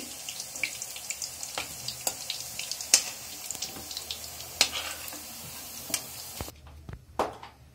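Soya chunks sizzling as they shallow-fry in hot oil in a kadhai, with sharp clicks of a metal ladle against the pan as they are lifted out, the loudest about three seconds in. The sizzling drops away about six and a half seconds in.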